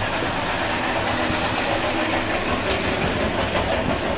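Steady street traffic noise: a continuous rumble of passing vehicle engines.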